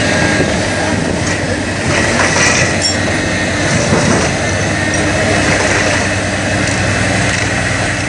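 Diesel engine of a material-handling excavator running steadily as its hydraulic grapple crushes and tears apart a boat hull, with cracking and screeching of the breaking hull and a few sharp cracks.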